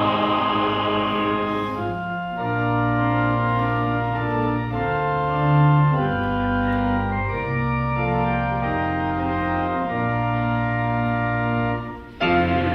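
Organ playing slow, held chords that change every second or two. Near the end it drops away briefly before louder, fuller music comes in.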